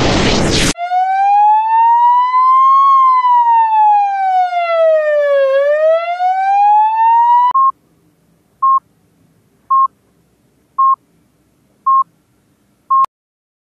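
A loud noisy burst cuts off under a second in. A siren then wails, its pitch rising and falling slowly over several seconds, and stops abruptly. After that a hospital heart monitor beeps five times, about once a second.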